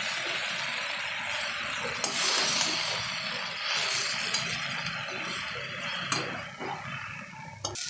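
Momo filling of shredded chicken and vegetables frying in a kadai while a spatula stirs it: a steady sizzle, with a few sharp clinks of the spatula against the pan. The sizzle thins near the end.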